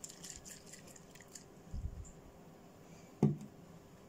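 Gritty mineral cactus substrate crumbling off a root ball under gloved fingers, with small stones ticking into a plastic tray during the first second or so. A dull thud follows a little before the middle, and a single sharp knock, the loudest sound, comes about three seconds in.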